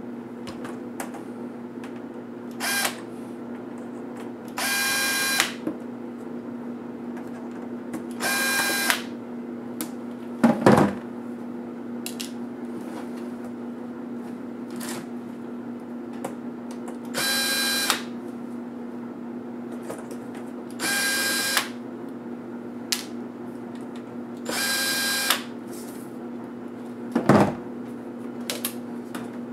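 Cordless electric screwdriver run in six short bursts of under a second each, backing screws out of a laptop's display assembly. Two sharp knocks from parts being handled stand out about a third of the way in and near the end, over a steady low hum.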